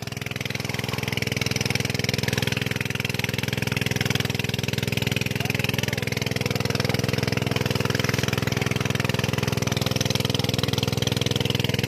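An engine running steadily at one constant speed, a low even drone with no change in pitch.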